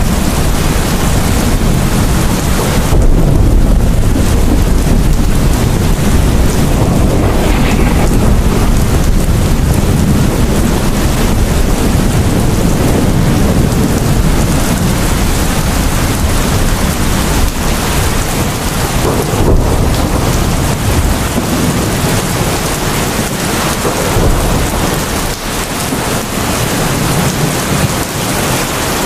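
Heavy rain pouring steadily, with thunder rumbling low underneath, loudest a few seconds in and easing off near the end.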